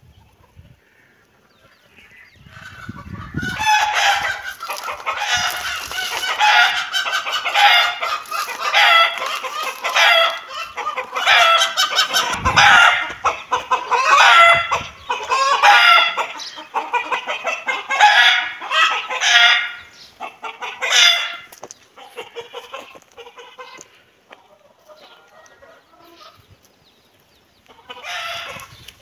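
Chicken clucking and cackling: a loud run of rapid, short repeated calls, about two a second, starting a few seconds in and going on for nearly twenty seconds, then fainter calls and a brief loud burst near the end.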